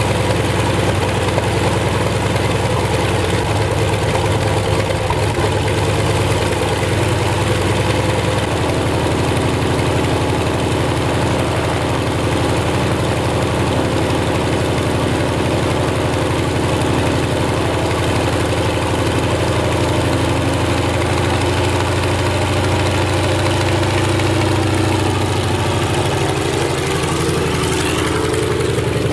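Antonov An-2's Shvetsov ASh-62 nine-cylinder radial engine idling steadily with the propeller turning, picking up speed near the end.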